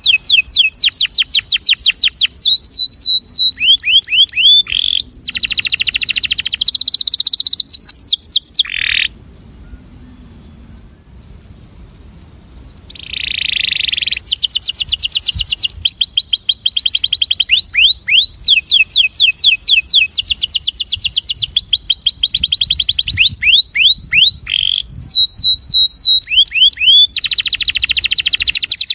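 Male domestic canary singing fast trills of repeated down-sweeping notes alternating with buzzy rolls. The song breaks off for a few seconds near the middle, then resumes. It is the song of a breeding male.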